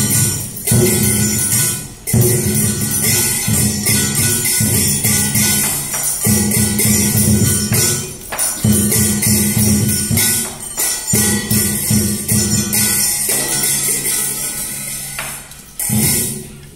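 Traditional Vietnamese water-puppet theatre music: jangling percussion over steady low instrumental tones, played in phrases of a few seconds with brief pauses between them.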